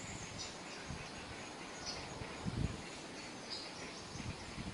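Faint outdoor background hiss with a few short, high chirps, like small birds, and one soft low thump a little past halfway.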